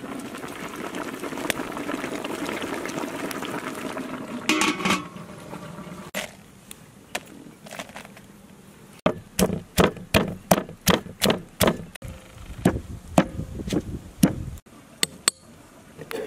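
A covered pot bubbling steadily under its metal lid for about four seconds. Later, a pestle pounds garlic and red chillies in a mortar: a quick run of dull strikes, about three a second, for some five seconds.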